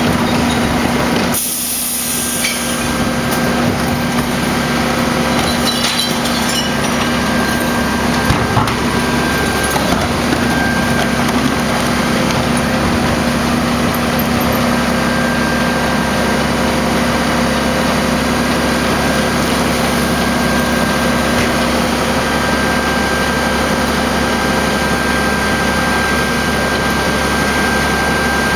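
Rear-loader garbage truck running steadily at the curb, its engine and hydraulics giving a constant hum with a thin whine over it. A brief hiss comes about a second and a half in.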